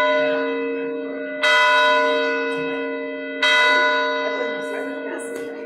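Church bell tolling: a stroke about one and a half seconds in and another about two seconds later, each ringing on and slowly fading into the still-sounding tail of the stroke before.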